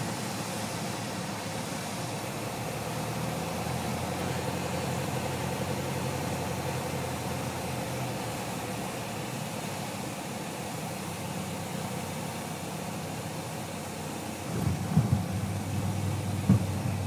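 A Piper Warrior's single piston engine and propeller droning steadily inside the cockpit on final approach. About fourteen and a half seconds in, the wheels touch down on the runway, giving a few sharp thumps and a rumble as the plane rolls.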